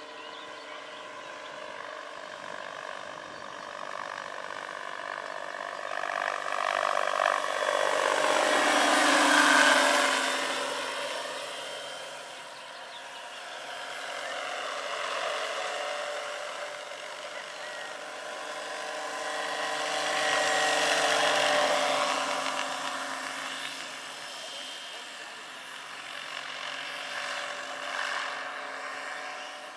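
Electric drive and rotors of a large-scale RC AS-350 Ecureuil model helicopter (2.5 m rotor) in flight: a steady whine over a rotor hum. It grows loud as the model passes close about nine seconds in, its pitch falling as it goes by, and swells again around twenty-one seconds.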